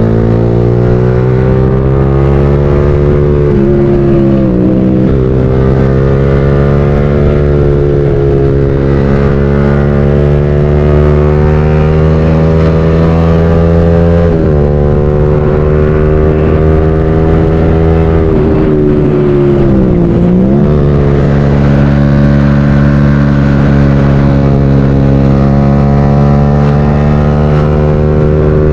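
Motorcycle engine under way, heard from the rider's own bike: its note climbs slowly as it pulls, dips briefly about four seconds in and again around fourteen seconds, and drops more deeply near twenty seconds before rising again, as the throttle is eased and gears are changed.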